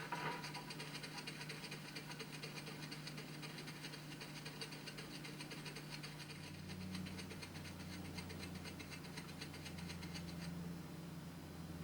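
A hedgehog scratching itself in rapid, even strokes for about ten seconds, stopping shortly before the end. A low steady hum comes in about halfway through.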